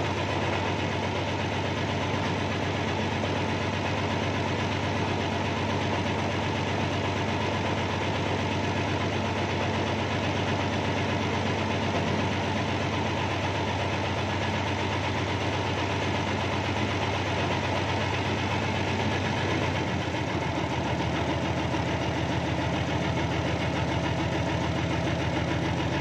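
Backhoe's diesel engine idling steadily, heard from the operator's cab; its low note shifts slightly about twenty seconds in.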